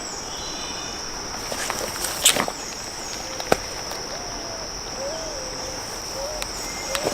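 Steady high-pitched insect chorus, broken by a few sharp clicks and knocks.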